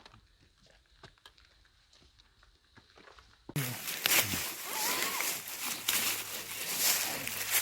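Faint scattered footsteps, then about halfway through a sudden loud rustling and crunching that keeps going, like walking through dry leaves and undergrowth on a steep slope.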